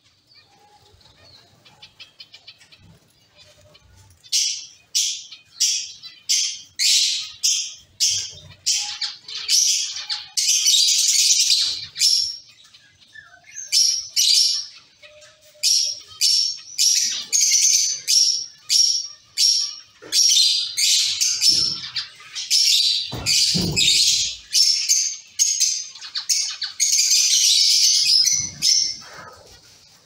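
Zebra finches calling: faint chatter at first, then from about four seconds in a long, rapid series of loud, high, short calls, about two a second, with a few longer stretches of continuous calling.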